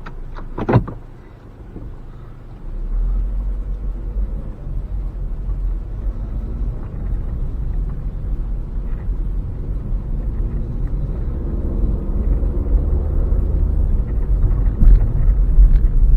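A single knock just under a second in, then a steady low rumble of a vehicle under way, slowly growing louder.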